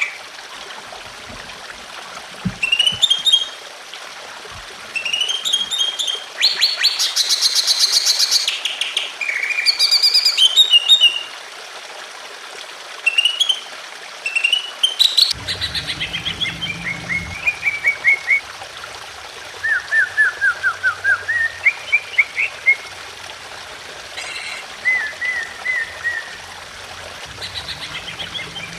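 Cucak ijo (green leafbird) singing in quick chirping and trilling phrases a few seconds apart, with a loud rattling run of notes a little before the middle. A steady trickle of water runs underneath.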